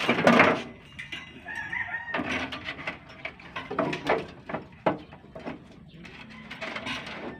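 Chickens clucking and a rooster crowing, among scattered short clicks and knocks.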